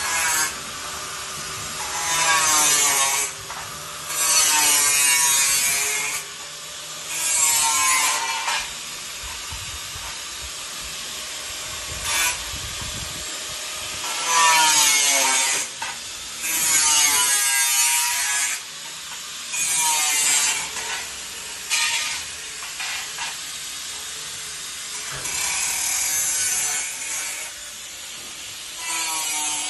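Wood being sawn by workers, in repeated bouts of strokes lasting one to two seconds each with pauses between.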